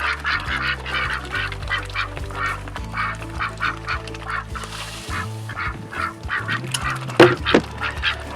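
Pekin ducks quacking rapidly and continuously in a busy chorus of short calls, over background music. A sharp click comes about seven seconds in.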